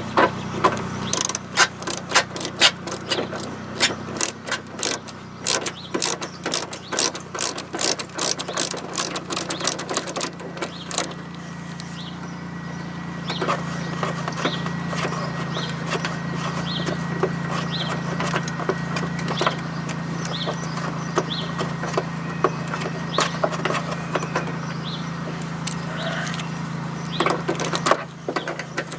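Hand socket ratchet clicking in quick runs as a screw is backed out of a plastic fender liner, over a steady low hum.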